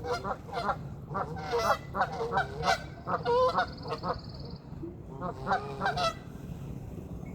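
Pond waterfowl calling loudly over scattered feed, many short harsh calls in quick clusters, as the birds squabble over the food.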